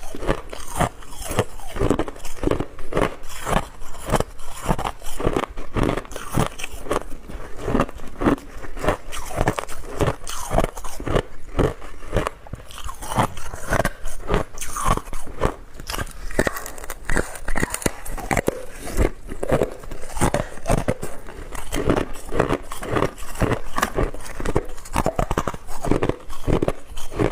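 Hard clear ice being bitten and chewed close to the microphone: a dense, irregular run of sharp crunches and cracks, several a second, that goes on without a pause.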